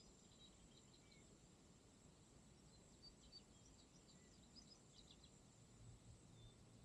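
Near silence: faint open-air ambience with scattered faint bird chirps.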